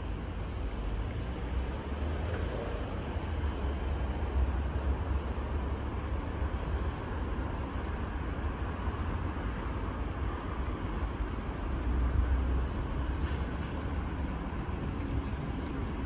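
Brisbane suburban electric train running: a steady low rumble with a haze of rolling noise over it, holding at an even level throughout.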